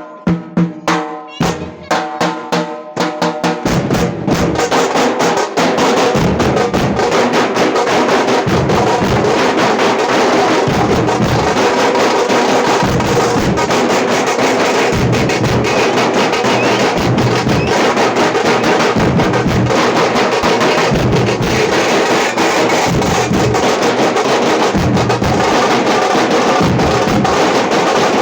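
Tamate frame drums played with sticks: a few separate ringing strokes, then from about four seconds in a fast, dense, unbroken beat.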